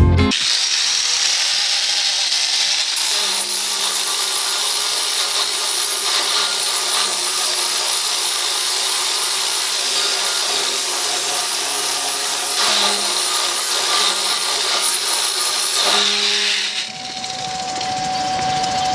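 Angle grinder grinding, a steady harsh hiss that starts abruptly. Near the end it changes to a steady single-pitched whine as the grinder runs without load.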